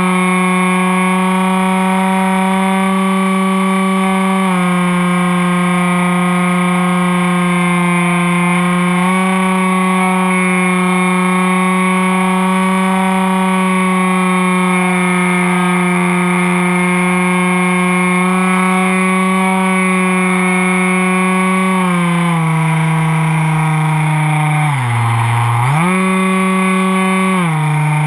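Electric motor and propeller of a Superfly RC foam airplane, heard from its onboard camera, running with a steady whine. The pitch steps down and back up a few times, and near the end dips sharply and recovers within about a second, as the throttle is eased and opened again.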